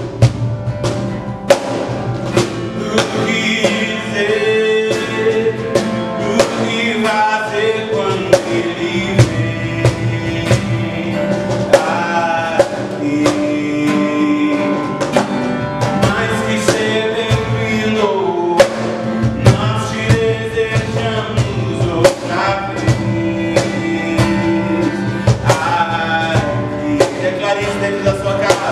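A man singing a worship song while strumming an acoustic guitar, with a steady drum beat underneath.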